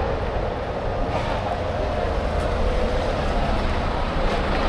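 Engine of a large coach bus running as the bus drives slowly past close by, a steady, even sound.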